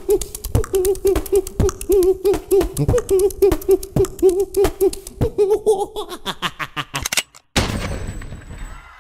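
Beatboxing: a steady rhythm of mouth clicks and snare-like hits under a repeated wobbling hooted bass tone, speeding up near the end. It stops briefly, then a sudden loud burst of noise dies away over about a second and a half.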